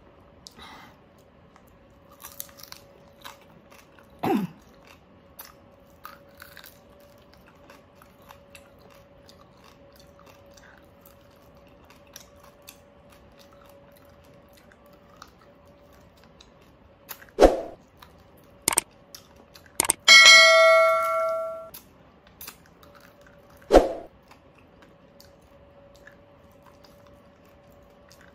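Eating crispy pata (deep-fried pork knuckle): chewing and biting with scattered small crunches and mouth clicks over a faint steady hum. A few sharp knocks stand out, and about twenty seconds in a bell-like ring sounds and dies away over a second or two.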